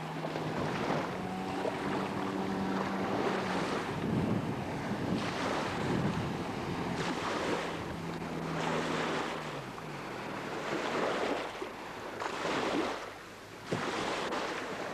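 Waterjet boat under way with its Nissan car engine humming steadily under repeated surges of rushing, splashing water, and wind buffeting the microphone. The engine drops in pitch about nine seconds in.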